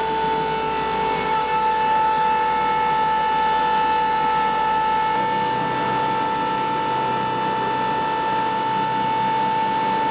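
Steady machine whine of several constant tones over a noisy hum, like running equipment in a maintenance hangar; a low rumble drops away about five seconds in.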